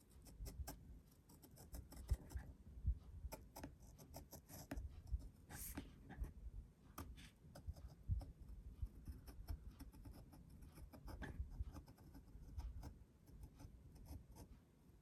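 A Gyro-Cut swivel-blade craft knife cutting around a paper cut-out, with faint, irregular scratching and ticking as the blade traces the outline.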